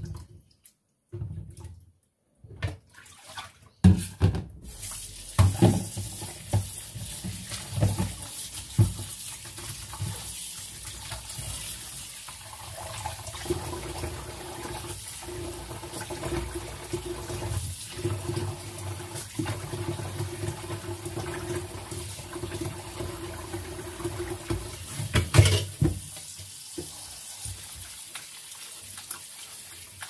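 Kitchen tap running into a stainless steel sink while mussels are rinsed in a bowl under it, with scattered knocks and clatter from handling the bowl and shells. The water starts about four seconds in, after a few handling knocks, and a sharp clatter a little before the end is the loudest sound.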